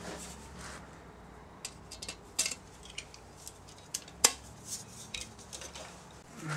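1/8-inch pop rivets being set with a pop riveter in a sheet-metal oil-filter casing: scattered sharp metallic clicks and snaps, the loudest about four seconds in.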